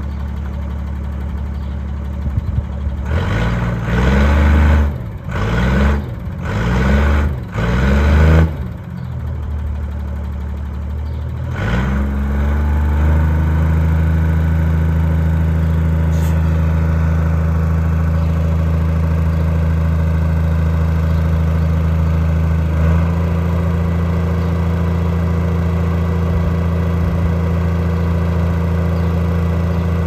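A truck's diesel engine idling, revved four times in quick succession, then held at a steady raised idle.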